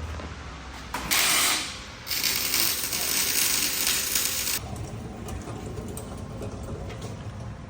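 A pneumatic shop tool running in two loud bursts: a short one about a second in and a longer one of about two and a half seconds.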